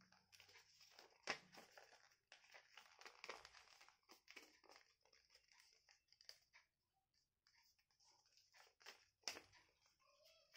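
Faint rustling and crinkling of a paper sheet being folded and creased by hand, with a sharper crackle about a second in and another near the end.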